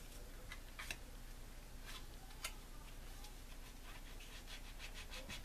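Faint, sparse scraping strokes and light ticks of a small hand tool working the edge of a plastic model-kit wing part.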